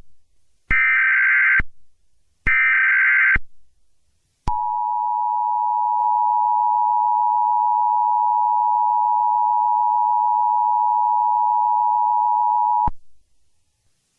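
Emergency Alert System tones: two raspy digital bursts of the SAME header data, about a second each, then about a second later the EAS two-tone attention signal (853 and 960 Hz) held steady for about eight seconds before it cuts off.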